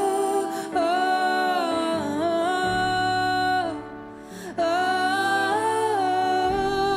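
Worship music: a female singer holding long wordless "oh" notes that glide between pitches, in two phrases with a short break about four seconds in, over sustained low chords.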